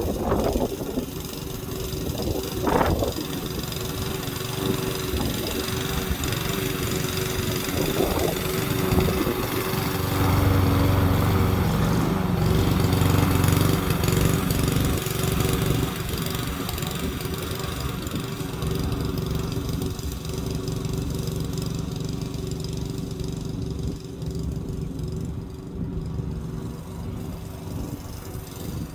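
Lawn mower engine running steadily, getting louder for several seconds around the middle.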